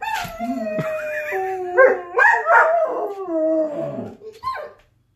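German Shepherd howling: long wavering howls, at times with two pitches sounding together, sliding down in pitch about four seconds in, then one short call.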